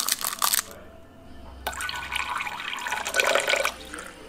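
Crinkling for the first moment, then after a click, water running into a small container for about two seconds, getting fuller-sounding near the end before it stops.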